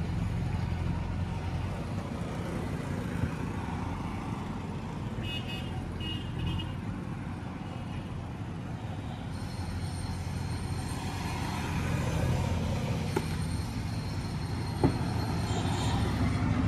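Steady low background rumble like distant traffic, with two short high-pitched toots about five to six seconds in.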